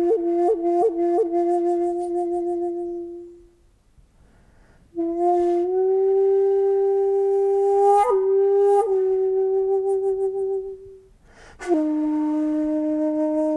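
A bamboo shakuhachi played in long, drawn-out meditative tones. A held note opens with quick finger-flick ornaments and dies away, then after a pause comes a breathy new note that bends slightly up, with two more flicks. Near the end a third, slightly lower note starts with a breathy attack and holds.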